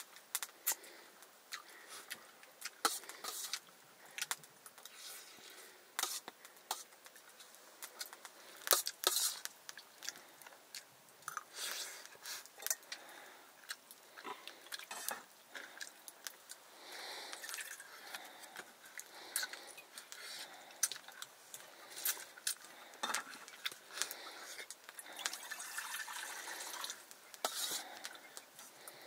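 People eating a meal: chewing and biting, with scattered short clicks and knocks.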